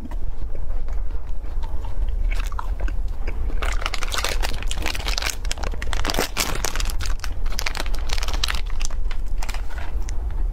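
Close-miked biting and chewing of a frozen ice cream bar, with crisp crunches. From about four to eight seconds in comes a dense run of crackling as a plastic food package is torn open.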